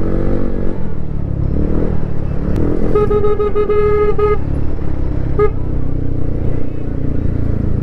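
TVS Ntorq scooter running under way with steady engine and road noise; a vehicle horn sounds for about a second and a half about three seconds in, and gives a short toot about two seconds later.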